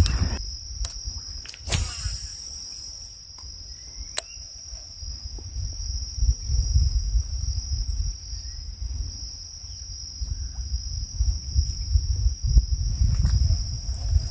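Steady high-pitched drone of an insect chorus over a low, uneven rumble, with a few sharp clicks in the first seconds, the loudest a little under two seconds in.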